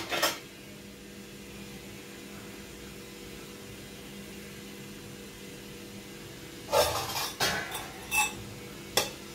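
A steady low hum for the first several seconds, then a steel lid clattering against metal as it is picked up and brought to cover a pot of cooking rice, with a few more clinks near the end.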